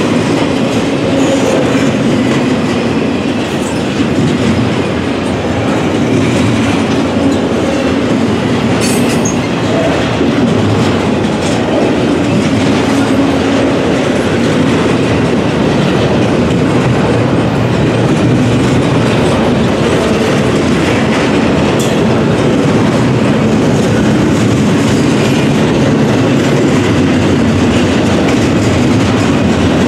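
Freight train rolling steadily past, its cars' wheels clacking over the rail joints.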